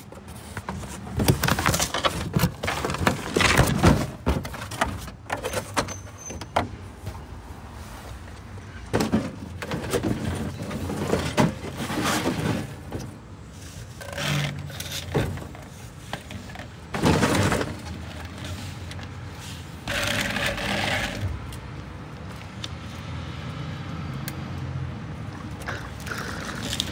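Flexible corrugated metal chimney liner being handled and stretched out by hand, its ridges scraping and crinkling in irregular bursts over a steady low hum.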